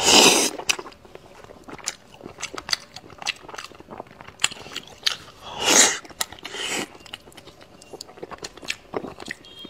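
Close-miked chewing and biting of braised pig's snout: a steady run of wet smacking clicks, with louder bursts at the start and again about six seconds in.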